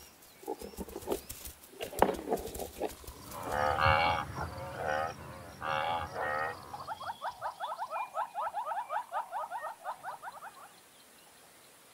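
Cape buffalo grazing: short crunching clicks of grass being cropped, then a few drawn-out lowing calls from the herd. After that, a rapid trill of short rising chirps, about seven a second, which stops about a second before the end.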